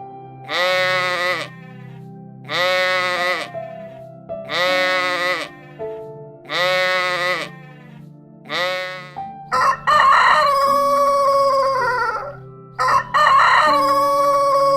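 Rooster crowing twice in long calls over the second half, after five short, evenly spaced animal calls about two seconds apart; steady background music runs beneath.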